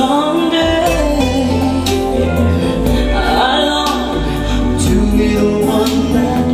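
A song with singing and a strong, steady bass, played through a pair of home-built two-way speakers with Ciare PW 256 woofers and Sica 9470 tweeters.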